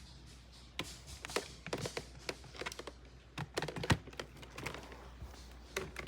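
Irregular light clicks and knocks, about a dozen spread over six seconds, over a faint steady low hum.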